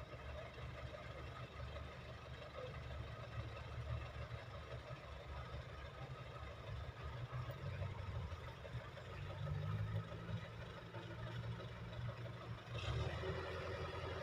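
Heavy diesel engine of earthmoving machinery running steadily, its note rising and falling as it works under load, higher for a few seconds about two-thirds in.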